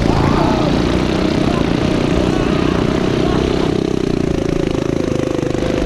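Go-kart's turbocharged, fuel-injected Predator 420cc single-cylinder engine running steadily at speed.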